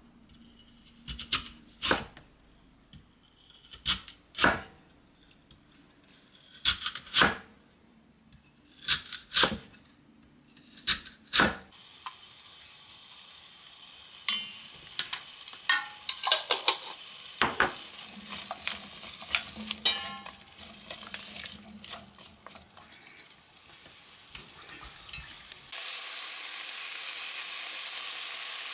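A large kitchen knife slicing through lotus root onto a wooden cutting board: sharp chops in pairs every couple of seconds. Then carrots frying in an enamel pot with a steady sizzle while a spatula stirs and knocks against the pot, and the sizzle turns suddenly louder near the end as more vegetables, lotus root slices, go into the pot.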